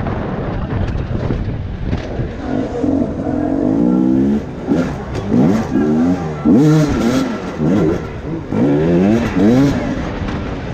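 Enduro dirt bike engine heard on board, running low for the first couple of seconds, then revving up and down in quick throttle blips several times a second as the rider works over stairs and obstacles.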